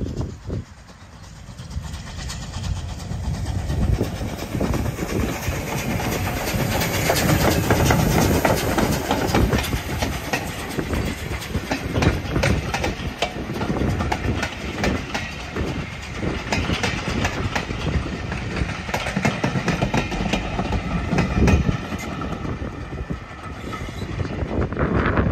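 Steam train passing close by: the locomotive and its coaches rumble past, wheels clicking over the rail joints. The sound builds over the first few seconds and stays loud while the carriages roll by, easing near the end as the train draws away.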